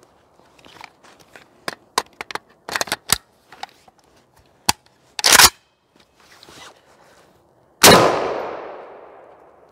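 Clicks and clacks of a 1969 AKM Kalashnikov being unslung and readied, with a louder clack about five seconds in. About eight seconds in comes a single 7.62×39 mm rifle shot, the loudest sound, with a long echoing tail that fades over about a second and a half.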